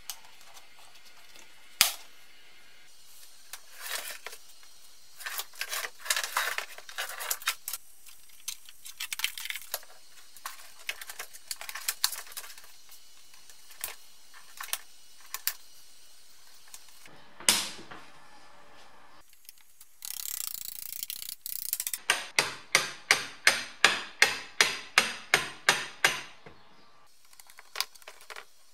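Hands working a wiring harness and its plastic connectors on a plastic heater box: scattered clicks, knocks and rustling of wires. About two-thirds of the way in comes a fast, even run of about a dozen sharp clicks, some three a second.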